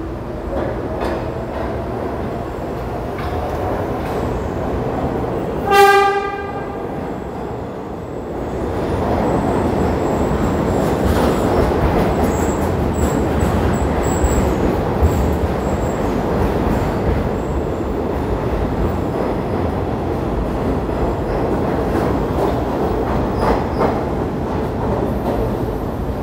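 New York City subway refuse train, led by R33 work cars, approaching with a rumble and giving one short horn blast about six seconds in. From about eight seconds on comes the louder rumble and clatter of steel wheels on rail as the refuse flatcars pass close by.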